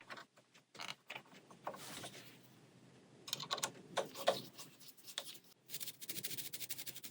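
Light clicks and small knocks of overlocker parts being handled and fitted by hand, with a quick run of rapid clicks near the end.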